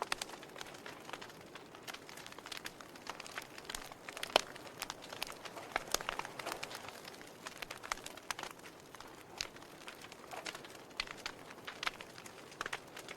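Wood fire burning in a fireplace, crackling with a steady scatter of irregular sharp pops over a soft hiss, one louder pop about four seconds in.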